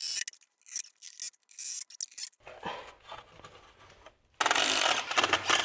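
Short, sharp scraping strokes of a hand tool on cement board, then a power drill starts up about four seconds in and runs steadily.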